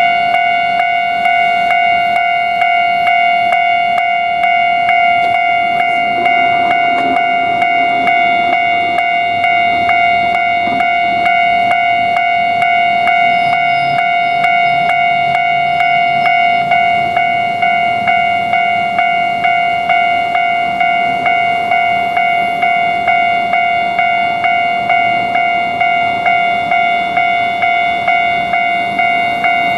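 Japanese railroad crossing alarm ringing its steady 'kan-kan' bell tone, about two strokes a second.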